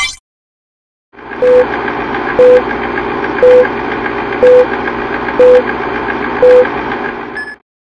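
Film-leader countdown sound effect: a steady film-projector running noise with a short beep once a second, six beeps in all, cutting off suddenly near the end.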